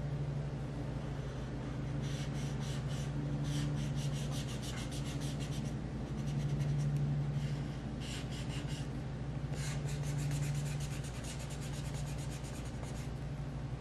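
Felt-tip marker scribbling on paper in rapid back-and-forth colouring strokes, coming in several spells with brief pauses.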